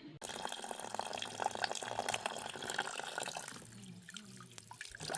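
Water running and splashing, with many small drips and spatters; it thins to scattered drips near the end.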